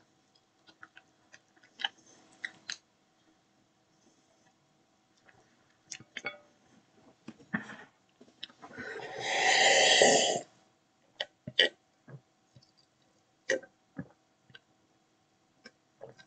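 A person eating with his hands: scattered short clicks and mouth noises. About halfway there is one loud, noisy sound lasting about two seconds.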